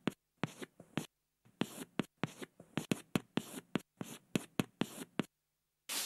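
Chalk writing on a blackboard: a quick run of sharp taps and scratchy strokes with a short pause about a second in. Just at the end the strokes stop and a steady rubbing starts as the board is wiped.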